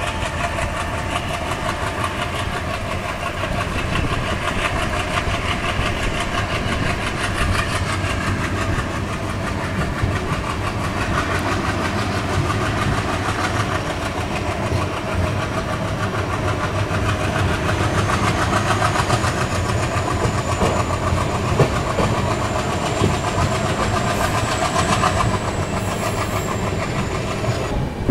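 ALCO WDM-3A diesel locomotive's 16-cylinder ALCO 251 engine chugging under power as the train pulls away and gathers speed, heard from a coach close behind it, mixed with the clatter of the coach's wheels on the track. A faint high whine rises slightly through the second half.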